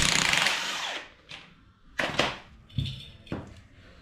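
Impact wrench rattling in a burst of about a second, breaking loose a rusted drive-shaft bolt at the differential. A few sharp metallic knocks follow over the next two seconds.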